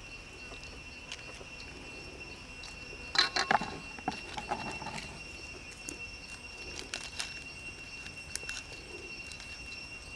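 Large prawns being handled and rubbed with chili sauce in a metal wok: a quick cluster of sharp clicks and taps of shell against the pan about three seconds in, then scattered lighter clicks and wet handling sounds. A steady high insect trill carries on underneath.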